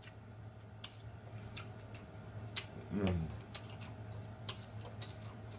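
Faint wet clicks and squishes of fingers picking through a bowl of seafood boil in sauce, with a brief falling 'mm' hum about three seconds in.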